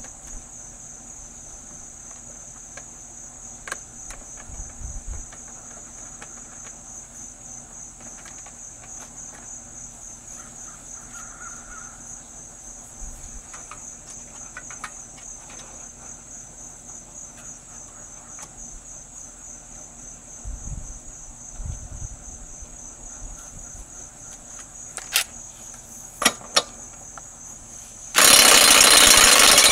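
A steady high-pitched pulsing chorus of insects with a few scattered clicks and knocks. Near the end a DeWalt cordless impact gun on the flywheel nut suddenly spins over a Craftsman 6.0 HP lawn mower engine, and it starts running loudly. The impact gun stands in for the broken pull cord.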